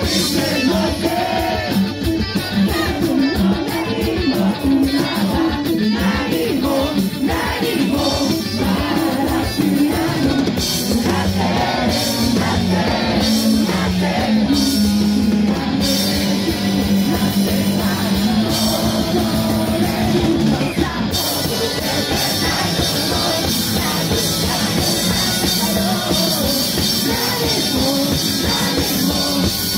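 Live rock band playing a song with singing, over electric guitars, keyboard and drum kit.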